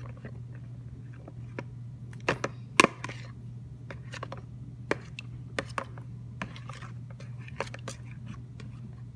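Metal spoon stirring a watery mixture in a clear plastic bowl, knocking and scraping against the bowl in irregular clicks, a few of them louder.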